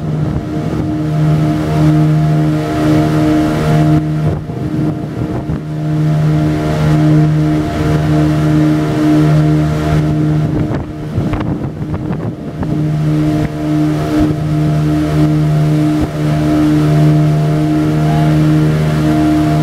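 A motorboat's engine running at a steady cruising pitch, heard from aboard the moving boat. The steady note briefly breaks up into rougher, rushing noise twice.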